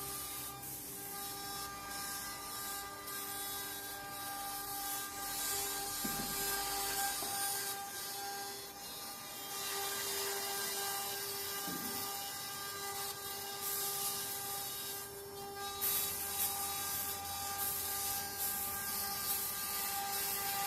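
CNC wood-carving router at work: the spindle gives a steady whine while the bit cuts wood with a hiss that grows and fades as it moves.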